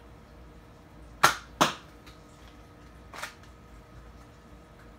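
Nerf Hammershot spring-powered foam-dart blaster firing, with two sharp snaps about a third of a second apart, then a fainter click near the middle.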